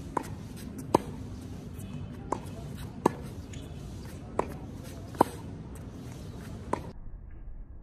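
A tennis ball being struck with rackets and bouncing on a hard court: seven sharp pocks at irregular spacing, about one every second, over a steady outdoor background. Near the end the background drops off suddenly.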